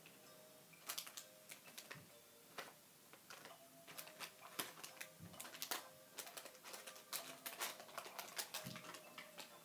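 A run of irregular light clicks and taps, sometimes several a second, over a faint steady hum.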